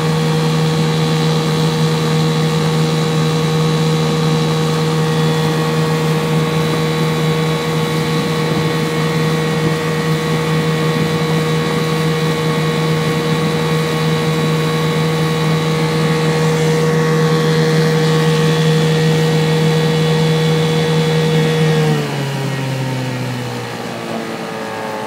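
Outboard motor pushing a small jon boat at a steady cruising speed, one even engine note. About 22 s in it is throttled back, and the pitch slides down and the sound drops as the boat slows.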